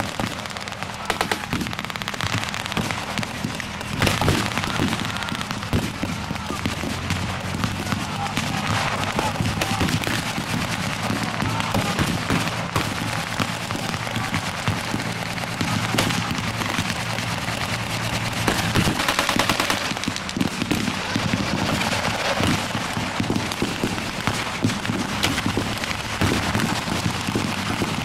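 Blank small-arms and machine-gun fire: rapid bursts and scattered shots all through. Underneath, a vehicle engine runs steadily close by.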